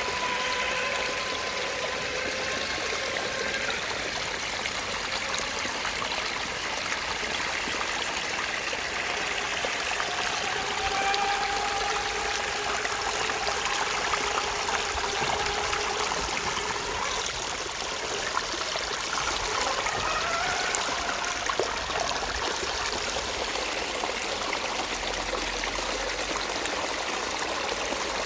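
Steady rushing of a flowing stream, with the faint whine of an RC crawler truck's electric motor and gears rising and falling in pitch as it speeds up and slows.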